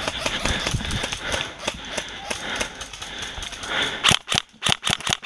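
Rustling and crunching of brush and forest floor as players scramble through the undergrowth. Then, about a second before the end, a rapid string of sharp snapping airsoft rifle shots begins, about six a second.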